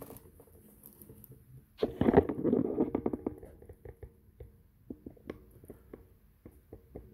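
Handling noise from a plastic action figure and its cloth costume being turned in the hand close to the microphone. A brief rubbing rustle comes about two seconds in, followed by scattered light clicks and taps.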